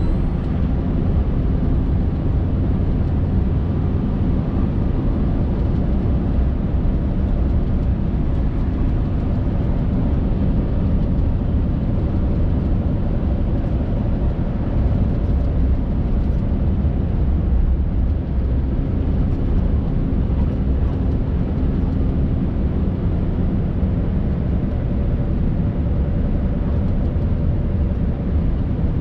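Scania R580's V8 diesel engine running steadily under way, heard from inside the truck cab, mixed with tyre noise on the snow- and ice-packed road.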